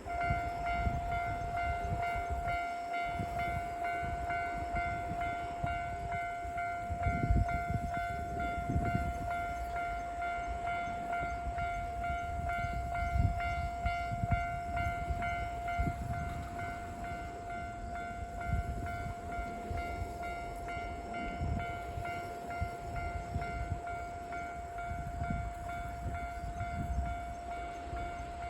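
Japanese railway level-crossing warning alarm ringing continuously, a steady repeating electronic bell tone, over a low uneven rumble.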